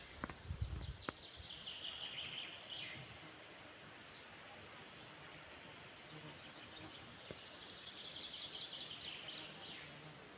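A songbird singing two phrases, one near the start and one near the end, each a quick run of high notes dropping into a trill. A few low thumps come about a second in, over a faint steady forest background.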